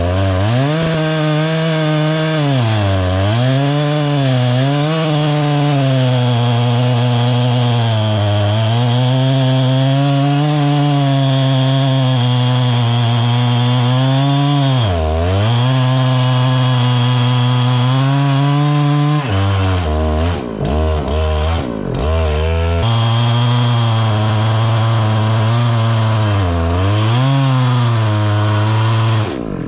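Large old 42-pound Husqvarna chainsaw running near full throttle while cutting through a big log. Its pitch dips again and again as the chain bogs in the cut, and about twenty seconds in the revs drop sharply several times before picking back up. The sound cuts off suddenly at the very end.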